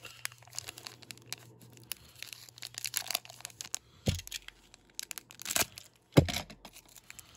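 Crinkling and crackling of a Japanese Pokémon VMAX Climax booster pack's foil wrapper being handled while being worked open. Two dull knocks come about four and six seconds in, the second the loudest.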